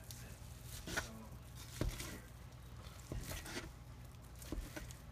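Stainless steel claw-style meat shredder forks stabbing and tearing through cooked meat, with a few sharp knocks as the tines strike the wooden cutting board.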